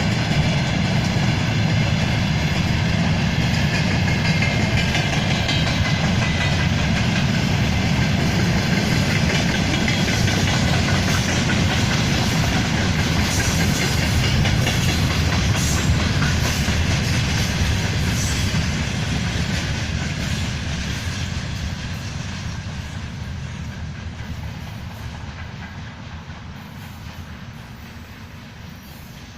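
Railway carriages of a passing train rolling by, wheels clacking over the rail joints. The sound holds steady for about eighteen seconds, then fades away as the train draws off.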